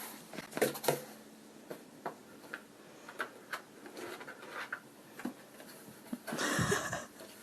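Faint scattered taps and clicks, with a louder scratchy rustle about six and a half seconds in.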